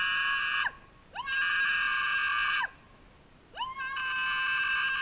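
A person giving long, high, held calls, each rising at the start, holding steady and dropping off at the end, about every two and a half seconds: calling the runaway dogs back.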